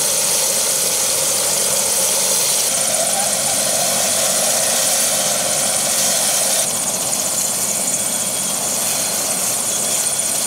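Turbine helicopter running on the ground with its main rotor turning: a loud, steady rushing noise with a high whine.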